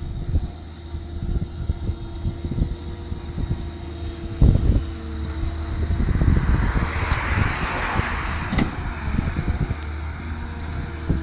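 Diesel engine of a Cat M318D wheeled excavator running steadily, with a knock about four and a half seconds in and a swell of hissing noise lasting about two seconds in the middle.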